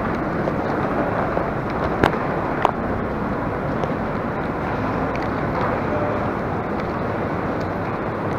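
Steady noisy rumble of walking along an enclosed walkway with a handheld camera, with two sharp clicks about two seconds in.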